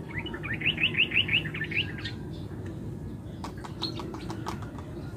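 A small bird singing a quick run of rising chirps, about six a second, for just under two seconds. About three and a half seconds in comes a cluster of light clicks from plastic cups as baking soda is tipped from a small cup into a larger one.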